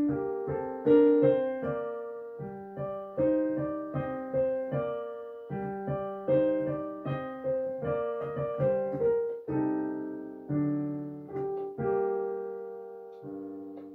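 Background piano music: single notes and chords struck about two or three times a second, each dying away, with the last chord left ringing and fading near the end.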